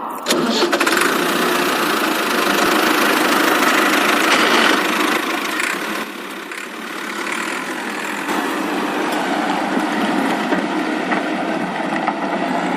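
Steady engine-like running noise with no deep bass, easing off briefly in the middle, from the toy construction vehicles' scene.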